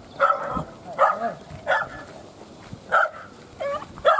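A dog barking: about six short, high barks spaced irregularly, with a pause in the middle, some bending in pitch.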